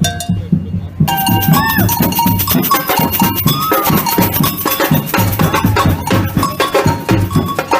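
Percussion-led music with a steady beat and cowbell-like strikes, with a few pitched notes that slide up and down, getting louder and brighter about a second in.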